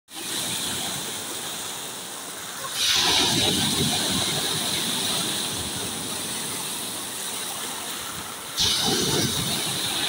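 Small sea waves breaking on a pebble beach and washing up over the stones, a steady surf noise. Two waves crash more loudly, about three seconds in and again near the end.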